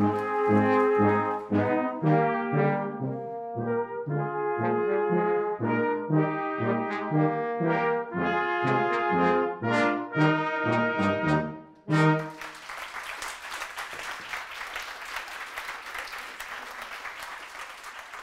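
A small brass band with tuba bass and flugelhorns plays rhythmic chords, ending on a held final chord about twelve seconds in. Audience applause follows and dies away.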